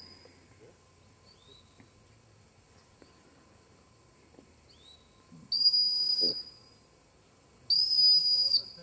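Two long, steady blasts on a handler's dog whistle, each about a second long, the second starting about two seconds after the first: whistle signals to a working retriever at a distance.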